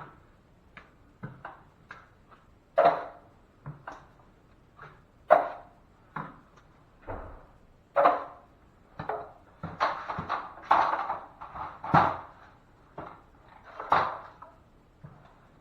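A steel drywall knife scraping and knocking against a mud pan and the ceiling patch while applying a tight coat of joint compound, in short irregular strokes about one or two a second.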